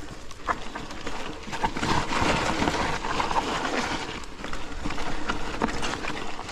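Mountain bike, a Forme e-MTB, ridden down a rough trail: tyres rolling and crunching on dirt, with a continuous run of knocks and rattles from the bike over bumps.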